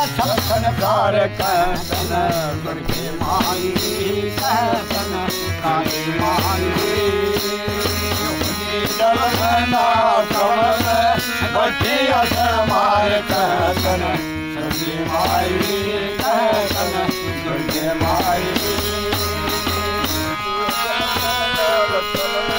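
Folk devotional song: a man singing over a harmonium and a hand drum.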